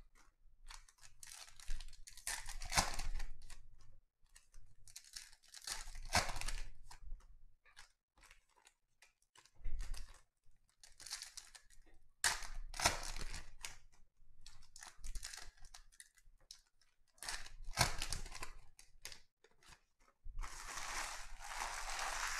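2020 Panini Donruss Optic football card pack wrappers being torn open by hand: foil-and-plastic packaging crinkling and ripping in repeated bursts, with short pauses between.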